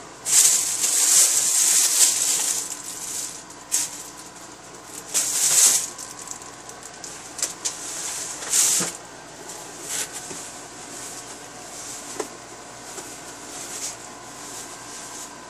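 Plastic bags rustling and crinkling in bursts as things are handled close to the microphone, loudest in the first two seconds and again around five to six seconds, with a few short knocks and clicks between.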